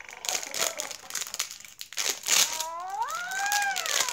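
Crinkling and crunching as pieces of a Hatchimal's plastic egg shell are picked off the plush toy. About two and a half seconds in, the Hatchimal's electronic voice gives one long call that rises and then falls in pitch.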